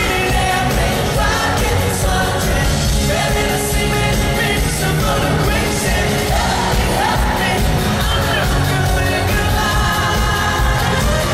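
Live pop-rock band playing with a lead singer, heard from the audience at a concert.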